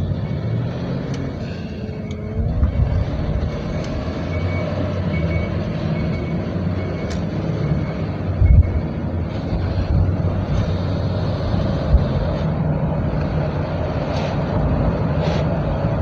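Cabin noise of a 1999 Chevrolet Astro van driving: its 4.3-litre V6 engine and road noise running steadily, with a few short thumps.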